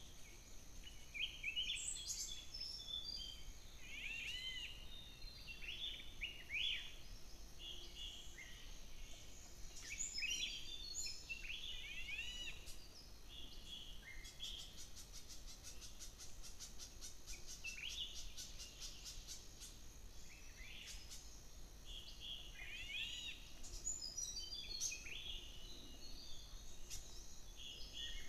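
Several wild birds calling: short, arching chirps repeated again and again and overlapping, with a fast, even run of ticks for several seconds around the middle.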